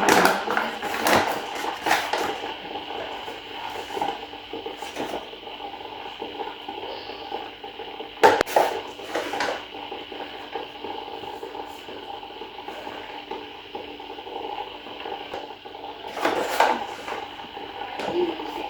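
Kitchen utensils and dishes clattering and knocking now and then during cooking, with one sharp knock about eight seconds in, over a steady faint hum.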